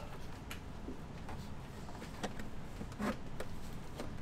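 Faint, irregular plastic clicks and rubbing as the clips around a BMW E46 halogen headlight lens are pried and pulled loose, a few clicks spread over the seconds.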